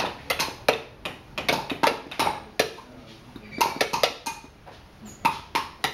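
Wooden mallets tapping carving chisels into blocks of wood: several carvers at once make irregular sharp knocks, a few a second.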